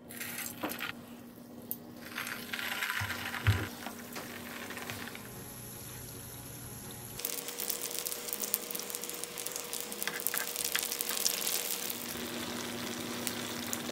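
Bread rolls deep-frying in hot oil: sizzling and crackling that becomes denser and louder from about halfway. A few sharp knocks come in the first few seconds.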